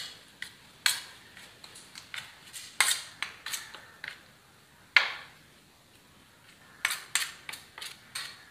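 Metal spoon stirring spice powders and water into a paste in a stainless steel plate, clinking and scraping against the steel in irregular taps. One louder knock comes about five seconds in, then a short pause, then a quicker run of taps near the end.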